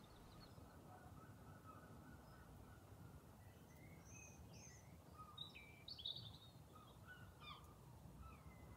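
Faint birdsong in a quiet garden: scattered short chirps and whistles from small birds over a low, steady background hush, with most of the calls from about halfway through.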